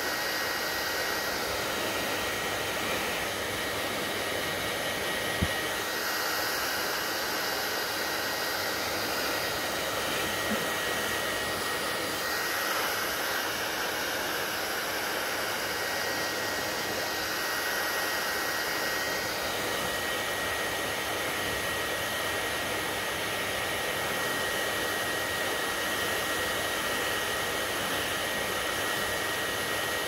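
Panasonic hand-held hair dryer blowing steadily, a thin high motor whine over the rush of air, swelling and fading a little now and then as it is moved over wet hair.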